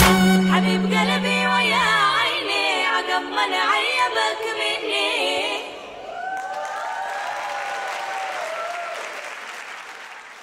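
The dance track's final bars: the beat drops out, leaving a held low note that slides down and wavering singing that stops about five and a half seconds in. Then audience applause with cheering, fading out near the end.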